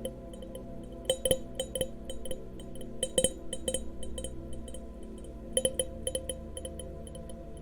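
Glass goblets being lightly tapped and clinked together, in three quick clusters of ringing ticks.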